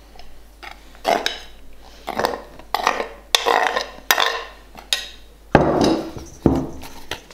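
Plastic dough scraper scraping and knocking against a stainless steel mixing bowl as flour is worked into a soft dough, in a string of irregular strokes, with a louder knock about five and a half seconds in.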